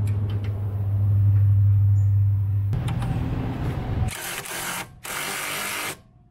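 Small 3/8-inch cordless impact wrench tightening a sway bar bushing bolt: a steady low hum for the first few seconds, then two harsh bursts about a second apart that cut off sharply.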